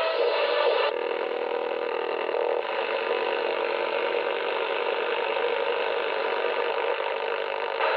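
Shortwave receiver's speaker giving a steady rush of static and noise in AM mode as the set is tuned off a station on the 41 m broadcast band, with no clear music or voice; the band is noisy. The sound changes about a second in, as the tuning comes to rest.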